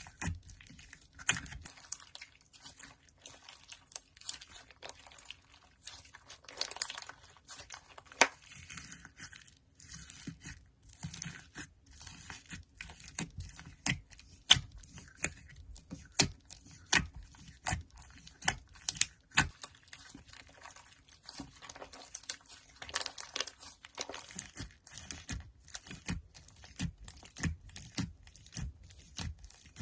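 Hands squishing and pressing slime, giving irregular sharp pops and crackles with short stretches of soft crinkling.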